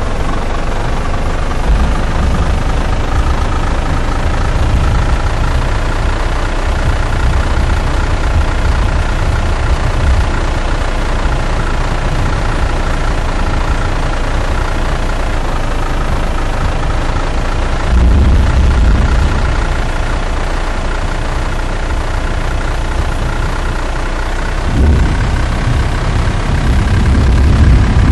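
Tornado Intercept Vehicle 2 (TIV 2) running loud and steady, with a droning tone that wavers slowly in pitch over a noisy roar. Deep rumbles swell about 18 and 25 seconds in.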